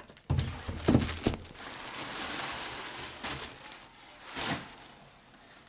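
Packaging being handled: a cardboard shipping box and a plastic-wrapped product box rustling and crinkling, with a few dull knocks in the first second and a half and another about four and a half seconds in.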